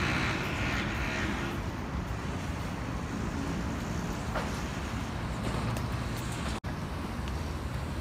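Steady low outdoor city rumble, with a louder hissing swell in the first second or so and a momentary dropout in the audio about six and a half seconds in.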